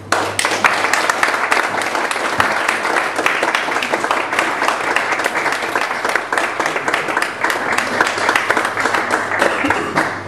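Audience applauding, breaking out suddenly at the end of a spoken-word reading and keeping up a steady, dense clapping.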